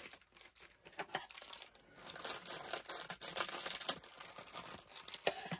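Plastic zipper pouches and paper cards being handled, crinkling and rustling in short, uneven rustles.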